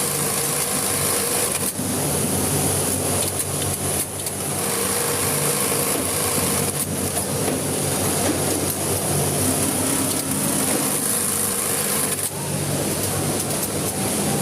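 Electric sewing machine running steadily as it stitches a repair in fabric, with brief stops between seams.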